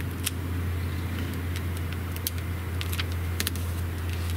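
Light scattered clicks and crinkles of blue self-adhered flashing membrane being pressed and smoothed into a window corner by hand, over a steady low hum.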